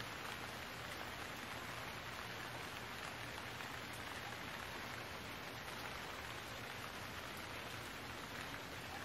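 Steady rain falling, an even hiss without change.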